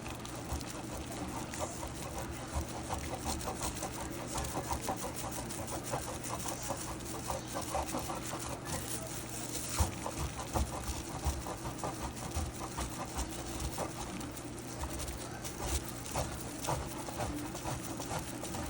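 Block of aged Parmesan being grated on a box grater: repeated scraping strokes, several a second, with a steady low hum beneath.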